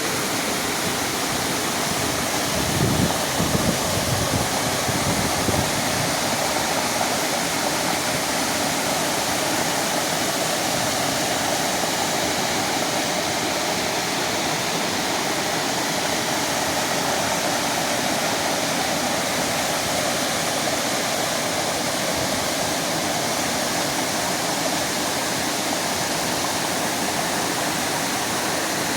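River water flowing steadily, a constant rush, with a few brief low bumps about three to five seconds in.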